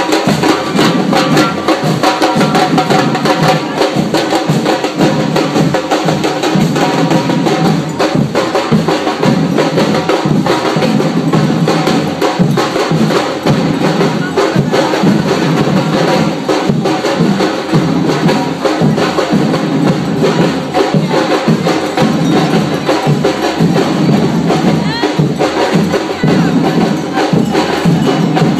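Street drum band playing a steady, loud rhythm on surdo-style bass drums and other drums, with sharp wood-block-like clicks among the beats.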